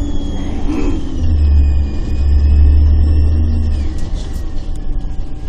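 Inside a moving Volvo Olympian double-deck bus: the engine and running gear rumble, growing louder from about one to four seconds in. A high whine slides down in pitch and then back up.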